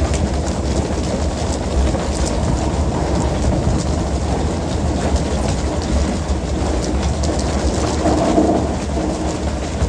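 Steady low drone of the fishing boat's engine under a constant wash of churning, splashing water, with many scattered sharp knocks and slaps from the deck as pole-and-line fishermen haul tuna aboard.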